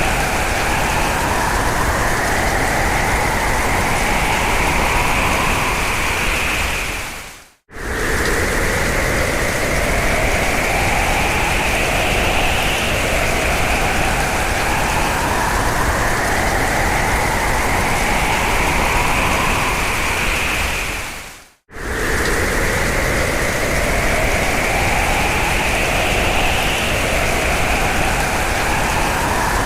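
Hurricane-force wind: a dense rushing noise with whistling howls that rise in pitch over a few seconds, again and again. It fades out to a moment of silence twice, about 7 and 21 seconds in, then starts again at full strength.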